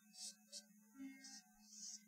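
Near silence with faint background music: a steady low tone under short, soft held notes about a second apart.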